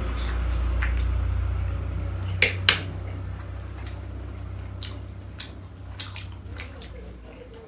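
Metal forks clicking and scraping on plates as two people eat momos, with wet chewing sounds; the two sharpest clicks come about two and a half seconds in, with a few fainter ones later. A steady low rumble runs underneath and fades near the end.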